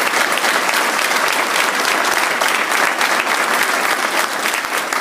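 An audience of many people clapping, a steady, dense applause.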